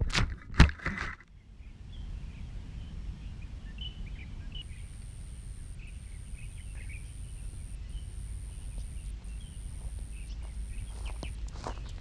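Quiet outdoor ambience: a steady low rumble with faint scattered chirps. A few sharp knocks come in the first second, and a thin high whine sounds in several short stretches over the second half.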